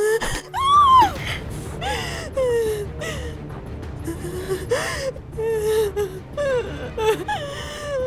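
A high voice whimpering and gasping in fear, with sobbing, breaking breaths and pitch that rises and falls, over a low, steady dramatic music underscore.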